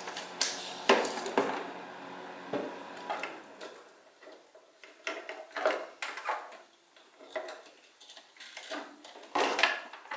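Irregular clicks, knocks and clatter of multimeter test leads, probe clips and battery cables being handled and fitted around a mower battery. A steady hum runs under the first few seconds, then fades.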